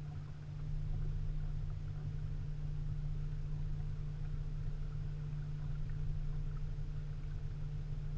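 Steady low hum of a boat's motor with a flickering rumble beneath it, growing slightly louder about a second in.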